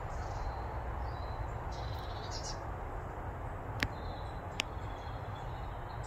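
Faint high calls of small garden birds over a steady low rumble, with two sharp clicks a little under a second apart past the middle.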